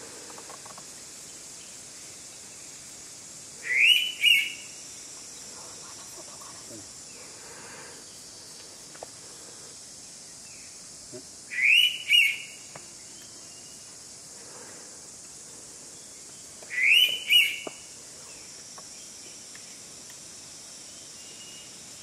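Indian pitta giving its two-noted whistle call three times, several seconds apart, each call two short loud whistles in quick succession.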